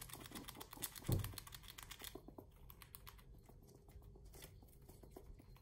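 Eurasian red squirrel gnawing and tearing at a big pine cone, making rapid dry crackling clicks for about two seconds. A dull bump comes about a second in, and fainter scattered clicks follow.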